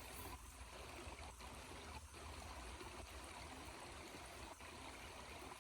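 Small spring-fed mountain stream trickling faintly and steadily.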